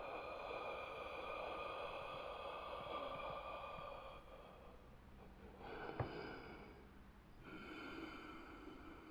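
Zombie sound effect: rasping, throaty breaths. One long breath lasts about four seconds, then two shorter ones follow, with a sharp click during the second.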